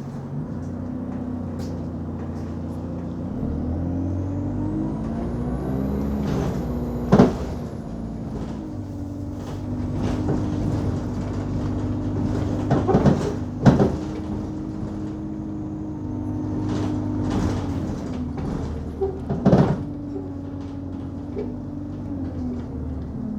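Inside an Enviro 200 Dart single-deck bus on the move: the diesel engine runs and its pitch rises and falls, with a high whine swelling and fading over the same stretch. Four sharp bangs cut through: one about a third of the way in, two close together in the middle, and one more later.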